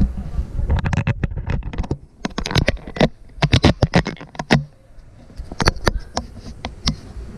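Close hand-handling noise: quick irregular clicks, taps and scraping rustles as a spark plug wire and its small terminal parts are handled, busiest in the middle with a brief lull partway through.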